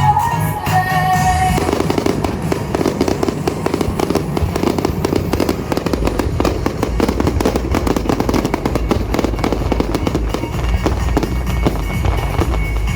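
A fireworks display firing a dense, rapid barrage of bursts and crackles over the show's music, starting about a second and a half in. A deep low rumble joins about halfway through.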